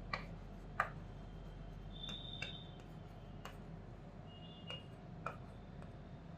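Faint writing on a blackboard: scattered taps of the writing tool against the board and a couple of brief high squeaks as letters are drawn.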